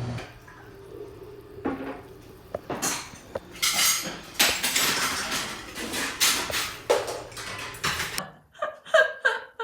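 Dishes and cutlery clinking and scraping at a table, in a string of short, uneven knocks.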